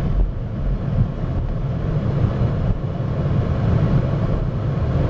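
Car driving on a road, heard from inside the cabin: a steady low rumble of engine and tyres.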